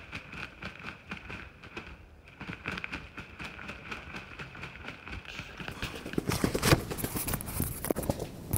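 Headless Merriam's turkey gobbler flopping on dry leaves and brush, its wings beating the ground in rapid, irregular thumps. About six seconds in, louder close rustling and handling noise takes over.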